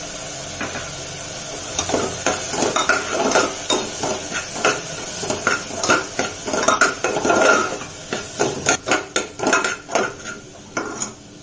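Metal spoon stirring vegetables in an aluminium pressure cooker, scraping and clinking against the pot's sides and base in a rapid, uneven run of strokes that starts about two seconds in.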